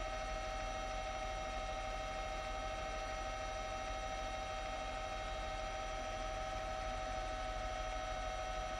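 Helicopter running steadily overhead: a constant droning hum with several steady whining tones over a low, pulsing rumble.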